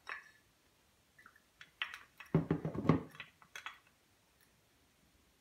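Light clicks and knocks of a disc-brake caliper being handled and turned over, with a denser patch of clattering handling noise in the middle.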